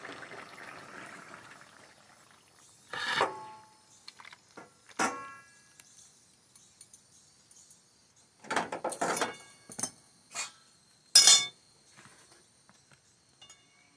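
Metal spatula and aluminium kadai clinking and clanking as curry is dished out of the pan: a few separate knocks with a short metallic ring, a quick cluster of clatters a little past the middle, and the loudest clank near the end.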